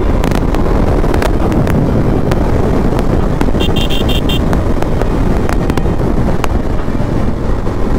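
KTM Duke 250 riding at speed: engine and road noise under wind rushing over the microphone. About halfway through comes a quick run of five or so short high beeps.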